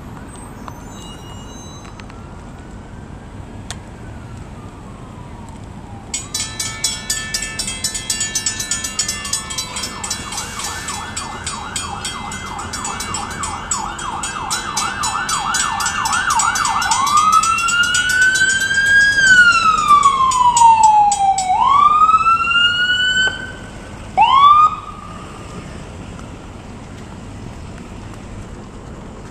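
Emergency vehicle's electronic siren passing: a rapid pulsing tone gives way to a fast yelp of about three rising sweeps a second, then a slower wail that rises and falls twice. It cuts off suddenly, followed by one short chirp.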